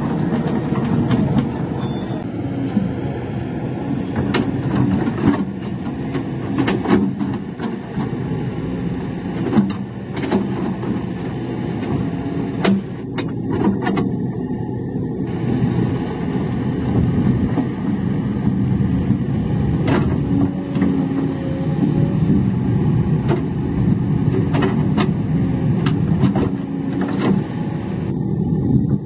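Small Komatsu crawler bulldozer's diesel engine running steadily under load as it pushes dirt, with scattered sharp clanks.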